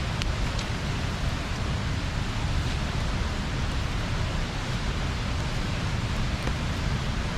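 Steady rush of river water pouring over a small weir, an even hiss with no change in level. A few faint clicks sound over it.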